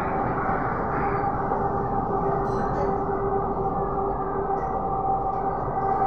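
Delhi Metro train running along an elevated track, heard from inside the coach: a steady running noise with a steady whine.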